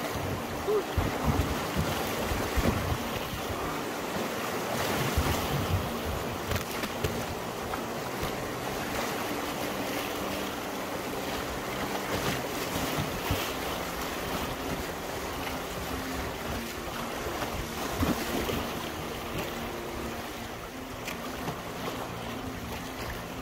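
River rapids rushing and splashing around a canoe as it runs them, with wind buffeting the microphone.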